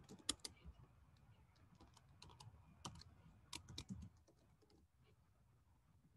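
Typing on a computer keyboard: faint, irregular key clicks that stop about four seconds in.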